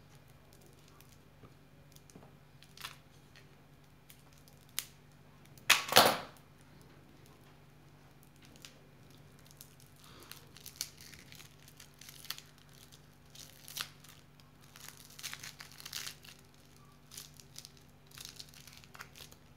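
Plastic lollipop wrapper being cut with scissors and torn open, with one loud rip about six seconds in, then a long stretch of crinkling as the film is peeled off the candy.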